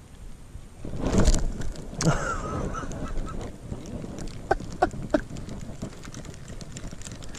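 A loud knock about a second in, then a drawn-out, wavering bird call and, a little later, three short calls.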